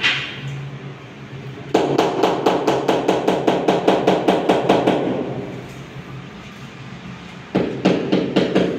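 Rapid tapping on a floor tile to bed it into its mortar, about five taps a second. One run starts about two seconds in and fades out, and another starts near the end.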